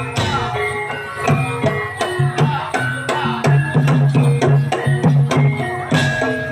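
Javanese traditional ensemble music accompanying a kuda lumping (jaran kepang) dance: hand drums with quick strikes over short ringing pitched notes in a busy rhythm.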